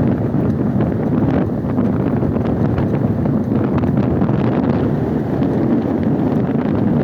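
Strong wind buffeting the microphone: a steady, loud rumbling noise with no let-up.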